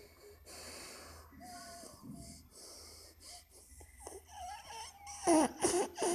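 Wheezy breathing through the nose and short muffled hum-like voice sounds from a boy whose mouth is stuffed with crisps in the Chubby Bunny challenge. The muffled voice grows louder near the end.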